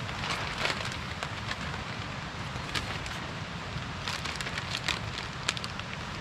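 Steady rain in the forest, with scattered sharp ticks of drops striking close by, several in quick succession about four seconds in.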